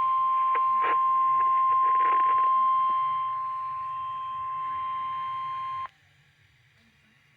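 NOAA Weather Radio 1050 Hz warning alarm tone: one steady, loud tone that switches on weather-alert receivers, with a few clicks over the first couple of seconds. It cuts off sharply about six seconds in, leaving faint radio hiss.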